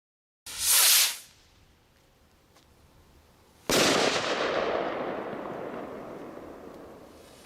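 Firework rocket launching with a short hissing whoosh, then about three seconds later bursting with one loud bang whose echo rumbles and fades slowly.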